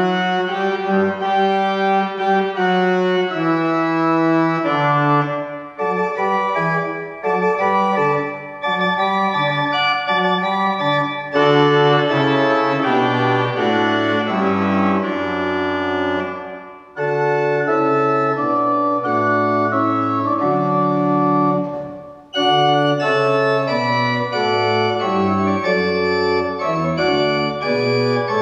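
Church pipe organ playing a postlude at the end of a service: sustained full chords over a moving bass, with a few brief breaks between phrases.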